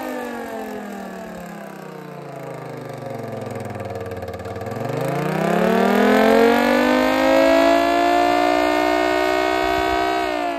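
Miniature 3D-printed Thunderbolt-style dual-tone siren, its rotors spun by a 775 DC motor, winding down in pitch, then spinning back up about halfway through into a steady two-tone wail. Its pitch starts to fall again just before the end.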